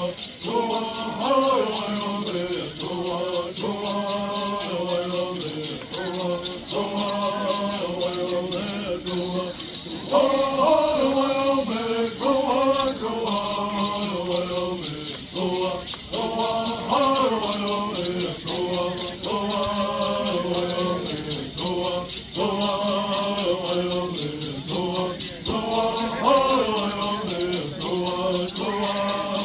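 Bird songs: singers chanting in unison over gourd rattles shaken in a fast, steady rhythm.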